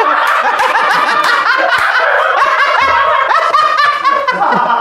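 Studio audience laughing, many voices overlapping at once.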